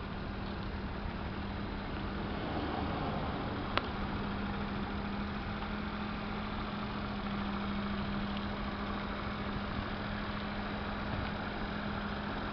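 Daihatsu Hijet kei truck's small three-cylinder engine idling steadily, with a single sharp click about four seconds in.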